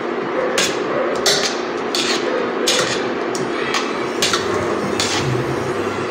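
Spatula knocking against a stainless-steel saucepan, sharp knocks roughly every two-thirds of a second, as a block of paraffin wax is stirred and pushed around to melt. Under it runs the steady hum of an induction cooktop.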